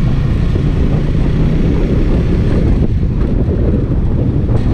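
Wind rushing over the camera microphone on a moving motorcycle, with the bike's engine running underneath as a steady low drone.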